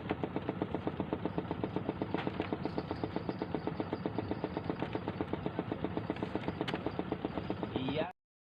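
Small engine running steadily with an even, rapid beat of about ten pulses a second; it cuts off abruptly near the end.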